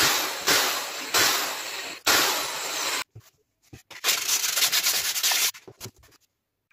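Sandpaper rubbed by hand over plywood in short back-and-forth strokes, smoothing the back of a board drilled with small pilot holes. The strokes pause briefly about three seconds in, then stop shortly before the end, leaving a few light knocks.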